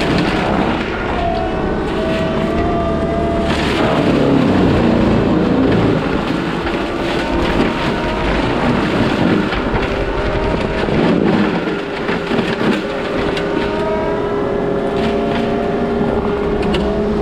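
Case skid steer running under load with its Shearex mulching head spinning through weeds and brush: a loud, continuous mechanical din with a wavering whine over it.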